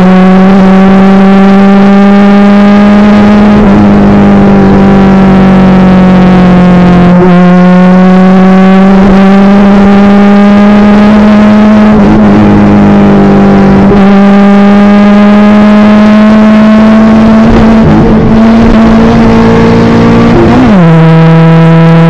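VAZ-2109's carbureted 8-valve four-cylinder engine heard from inside the cabin, running loud at high revs under load. Its pitch creeps slowly upward with a few brief dips, then drops sharply near the end as the revs fall.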